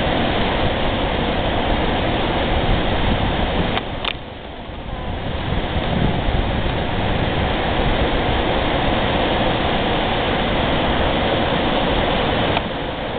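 Steady rushing of fast river water. Two light clicks come about four seconds in, and the noise briefly dips just after them.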